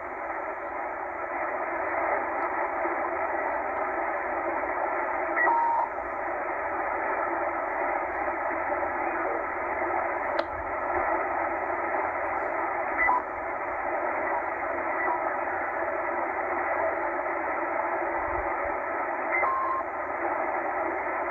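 Tecsun H-501X shortwave receiver in upper sideband mode giving steady static, hiss squeezed into the narrow single-sideband audio passband, while it is tuned up through the 13.3–13.5 MHz aeronautical band. A few brief steady tones pop up as the tuning passes signals, the clearest about five and a half seconds in and near the end.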